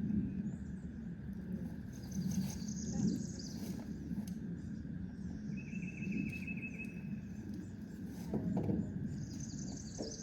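Songbirds singing: a high trilled phrase about two seconds in and again near the end, and a rapid buzzy trill in the middle, over a steady low rumble.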